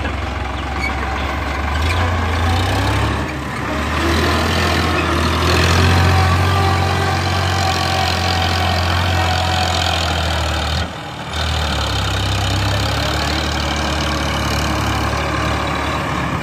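Sonalika DI 50 tractor's diesel engine running steadily under load as it pulls a trailer full of soil, a low steady hum that swells about six seconds in. The sound dips briefly twice, near three seconds and about eleven seconds in.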